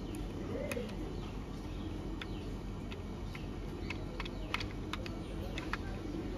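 Scattered light clicks and ticks of a small screwdriver and plastic parts as screws are tightened into a plastic toy fighter jet, over a steady low background hum.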